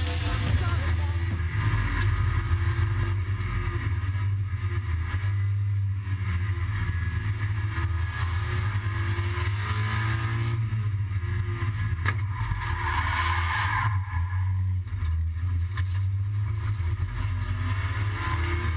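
Seat Leon Supercopa race car's engine heard from inside the cabin under racing load, its pitch rising and falling as the driver works the throttle and gears.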